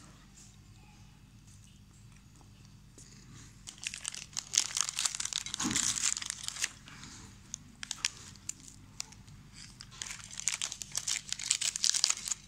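Foil wafer wrapper crinkling as it is handled and the wafers are pulled out of it. It comes in two spells: for a few seconds starting about four seconds in, and again near the end.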